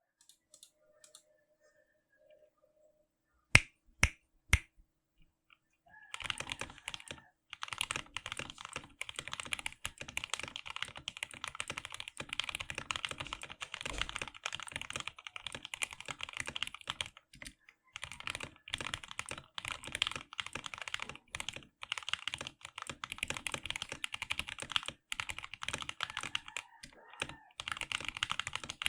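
Ajazz AK33 mechanical keyboard with lubed Gateron Milky Yellow linear switches, foam dampening, band-aided stabilizers and PBT keycaps, typed on quickly and continuously, with a few short pauses. Before the typing starts, three loud sharp clicks come about half a second apart, a few seconds in.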